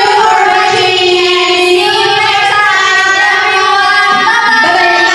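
A song with a high female singing voice holding long, smooth notes that step up and down.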